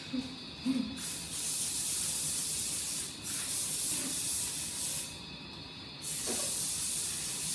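Aerosol spray can sprayed onto baking paper in three long hissing bursts, each about two seconds, with short breaks between. Two brief low sounds come just before the first burst.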